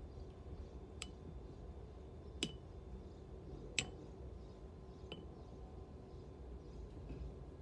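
Four light clinks about a second and a half apart, each with a short ring; the second and third are the loudest. A low steady hum runs beneath.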